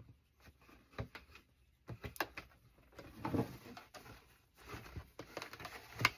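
Plastic divider being worked into the slots of a plastic divided storage box: irregular clicks, knocks and short scrapes, with a sharper click near the end.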